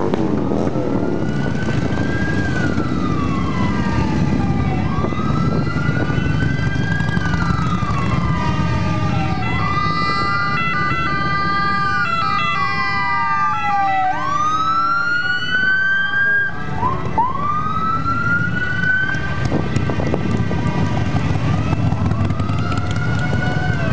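A siren wailing, rising and falling slowly about every four to five seconds, then in shorter overlapping rises in the second half, over the steady rumble of a column of Harley-Davidson motorcycles riding past.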